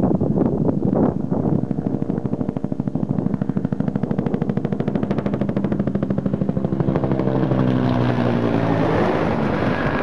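Helicopter passing close: a rapid, even chop of the rotor blades, with its pitched tone sliding down about seven seconds in as a rushing noise builds.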